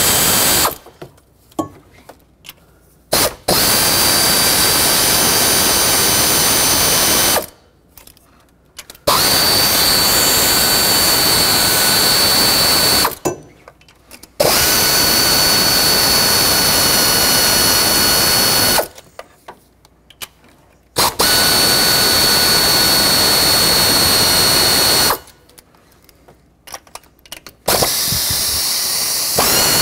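A cordless power tool driving a 10mm socket runs five times, for about four seconds each, with short pauses between, backing out valve cover bolts and studs. Each run is a steady motor whine.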